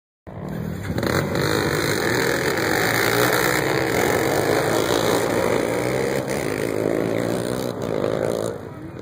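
A pack of racing ATVs (quads) revving and accelerating away together off the start line, many engines running at once. The engine noise eases off a little near the end as the pack moves away.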